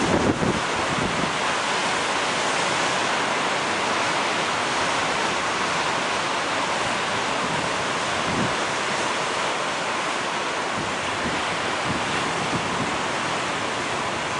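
Ocean surf: a steady rush of waves, with a brief low swell at the start and again about eight seconds in.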